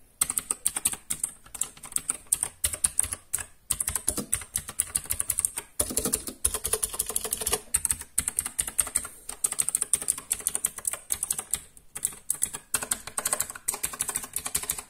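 Gametech Black Rider mechanical keyboard with blue switches being typed on rapidly: a fast, dense stream of sharp clicky keystrokes, broken by a few brief pauses.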